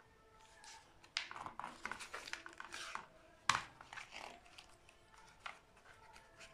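Paper pages of a book being turned by hand, a run of soft rustles and flaps with one sharper flick in the middle and a lighter one a couple of seconds later.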